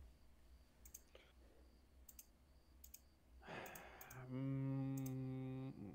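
Faint computer clicks in quick pairs, then a breath and a man's voice holding one steady, drawn-out vowel for about a second and a half.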